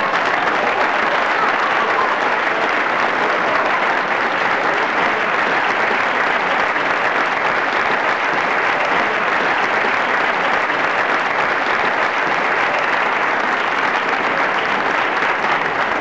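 An audience applauding steadily without letup: dense, continuous clapping.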